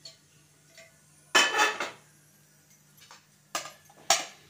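A nonstick frying pan and a metal plate clattering together as the pan is turned over onto the plate: one loud clatter about a second and a half in, then two short sharp knocks near the end.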